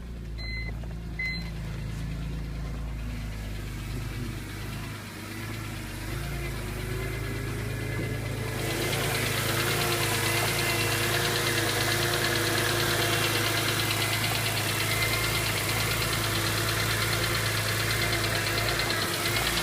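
BMW E46 M3's S54 3.2-litre straight-six idling with a rapid ticking, clicking knock, which the BMW dealer put down to a worn cam follower that has begun to damage the camshaft. About halfway through the engine sound grows louder and brighter.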